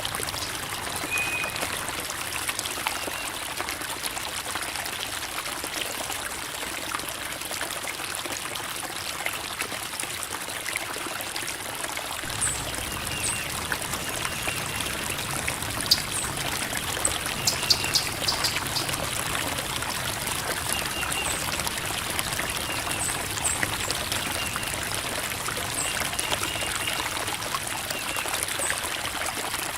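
Creek water babbling and trickling over rocks in a steady flow, growing fuller in the low end about twelve seconds in.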